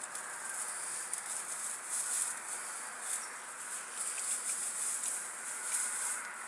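Crinkly rustling of a tinsel pom-pom wand toy being shaken among bare twigs, coming in short irregular swells.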